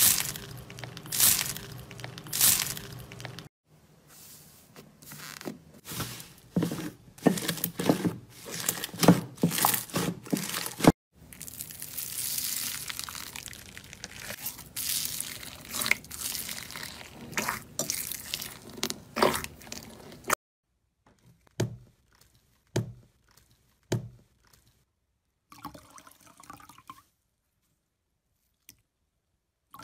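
Hands squeezing and kneading slime packed with small foam beads, a crunchy crackling mixed with wet squelching pops in quick clusters. In the last third there are only sparse soft squelches and clicks as a sponge is pressed into green slime.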